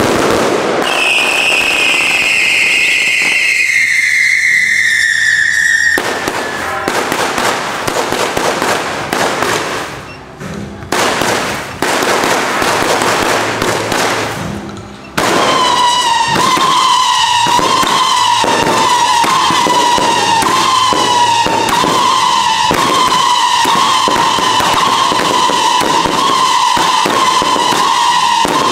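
Fireworks going off. A whistling firework falls in pitch over the first few seconds, then comes a dense run of crackling bangs, and from about halfway a long, steady whistle sounds over continuous crackling.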